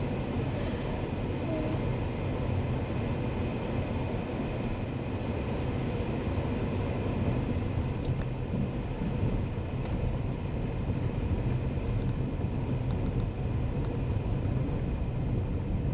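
Steady engine and road-tyre noise from a moving road vehicle, heard from on board: an even, unbroken drone with no sudden events.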